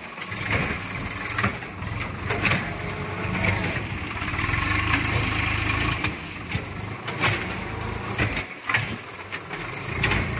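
Swaraj 744 tractor's diesel engine running under load as the loaded tipping trolley is tipped and the tractor is jerked to shake the load out. The engine runs louder and steadier through the middle, and a few sharp metal knocks come in the second half.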